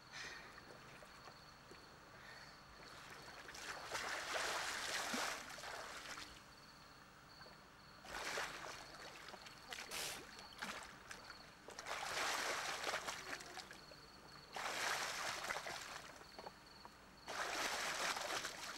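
A swimmer's strokes splashing and churning the water of a swimming pool, in bursts of a second or two with short pauses between.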